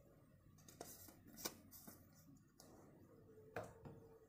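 Near silence with a few faint handling clicks as a toothpaste tube and its cap are handled, and one light tap a little before the end that rings briefly.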